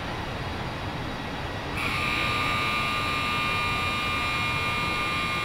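Truck assembly-plant machinery: a steady background noise, joined suddenly about two seconds in by a high-pitched whine of several held tones that does not change pitch.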